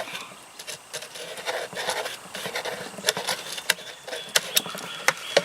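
A pen scratching and tapping on the surface of a coffee can as the can is handled, with scattered light clicks. The pen is failing to write on the can.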